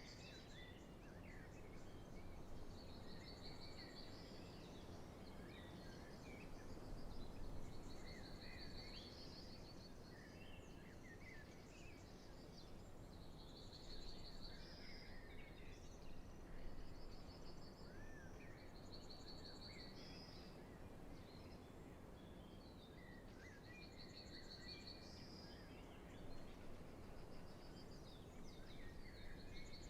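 Spring dawn chorus of many wild birds, faint: one bird repeats a short high trill every few seconds while others chirp and sing between, over a low steady background rumble.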